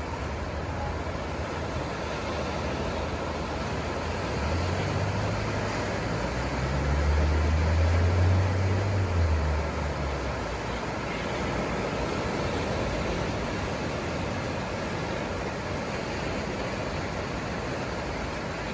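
Ocean surf washing steadily on a beach, with a deeper rumble swelling up and fading away in the middle.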